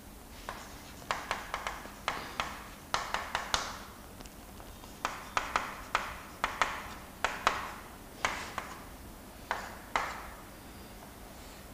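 Chalk tapping and scratching on a chalkboard as lines and letters are drawn: irregular clusters of sharp taps, with a short pause about halfway through.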